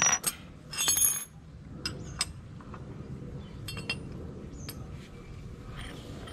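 Steel spanners clinking against each other and the tiled floor as they are picked up and set down: a series of sharp metallic clinks, the loudest ringing one about a second in.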